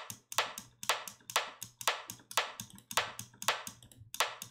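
Synthesized rimshot from Ableton Operator's FM synth, processed with reverb and hard compression, playing on a loop at about two hits a second: short sharp clicks, each with a brief ringing tail. A narrow EQ notch is cutting a tonal ring that the reverb brings out.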